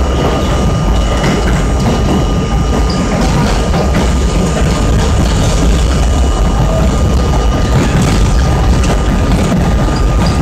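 R32 subway car running through a tunnel, heard from inside the car: a loud, steady rumble of wheels on rail and running gear, with a thin steady high tone above it.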